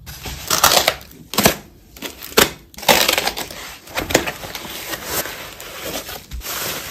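Packaging being crinkled and torn open by hand, in irregular crackly bursts with a few sharp snaps in the first few seconds, as an item is unwrapped.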